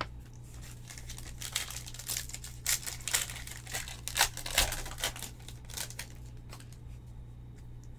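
Foil wrapper of a Panini Illusions basketball card pack crinkling as it is torn open by hand, a quick run of sharp crackles, loudest about four seconds in.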